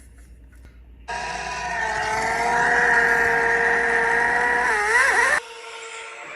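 Ferrari Formula 1 car engine at high revs: a loud, high-pitched, near-steady scream that starts abruptly about a second in, wavers briefly near the end and cuts off suddenly. A quieter engine sound, slowly rising in pitch, follows.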